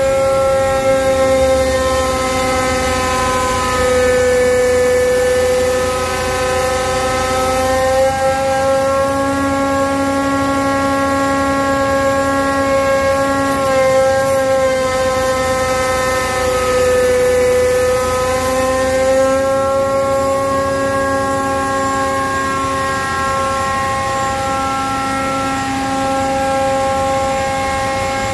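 Rexroth A4VG125 hydrostatic axial-piston pump running on a test stand at about 1,790 rpm: a loud, steady whine whose pitch sags slightly and recovers a couple of times around the middle.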